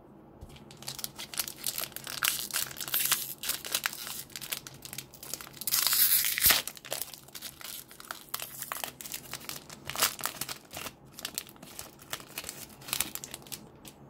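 Foil wrapper of a 2020 Select AFL Footy Stars card pack being crinkled and torn open by hand, with the loudest tear about six seconds in. The wrapper keeps crackling as the cards are pulled out, then settles near the end.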